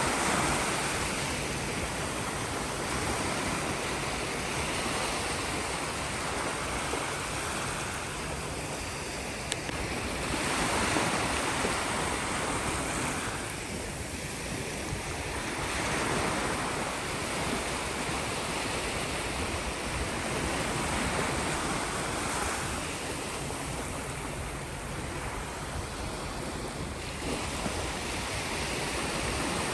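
Sea waves breaking on the shore: a continuous rush of surf that swells and eases every several seconds.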